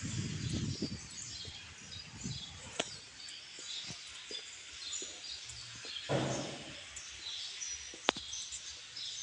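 Outdoor nature ambience with several birds chirping in short high notes throughout. A low rumbling noise sits in the first second, a louder swoosh comes about six seconds in, and a single sharp click about eight seconds in.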